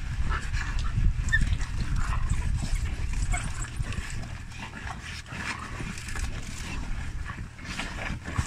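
A pack of African wild dogs feeding together on a carcass, giving scattered short, high-pitched squeaks and whimpers over a steady low rumble.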